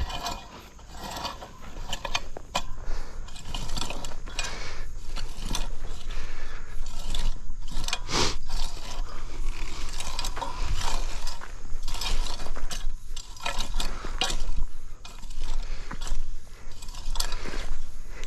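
Diesel construction machine running steadily, with repeated metal clanking, rattling and scraping as it works soil, and a louder scrape or knock about eight seconds in.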